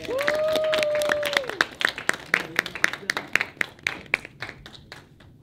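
Audience applauding, with hand claps that thin out and die away toward the end. One voice gives a held cheer in the first second and a half.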